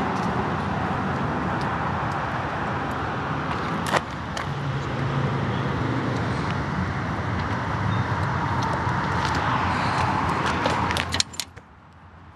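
Murray 22-inch push mower's 4.5 HP engine running steadily, with a sharp click about four seconds in. About eleven seconds in the engine noise cuts off suddenly, with a few clicks.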